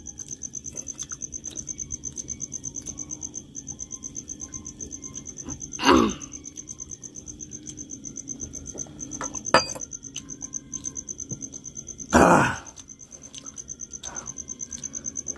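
Crickets chirping steadily in a fast, even pulsing trill. Two short, loud noises break in about six seconds in and again about twelve seconds in.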